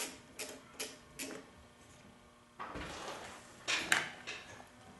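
Hands working on a plastic-shrouded backpack leaf blower: a series of light clicks, then a dull thud and a scraping, rattling clatter of plastic parts about halfway through.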